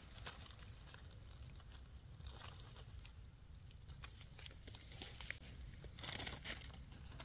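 Rustling and crunching of dry leaf litter and undergrowth disturbed by someone searching the forest floor for mushrooms, faint with scattered crackles and a louder rustle about six seconds in.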